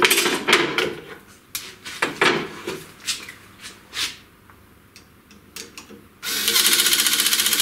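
A few knocks and clinks as metal rules and a square are handled on the router bed. Then, about six seconds in, a cordless impact screwdriver runs for about a second and a half, hammering rapidly as it tightens the screws on the CNC router's gantry plate after squaring.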